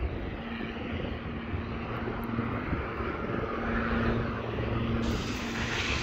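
A steady engine drone with a low hum, under outdoor noise.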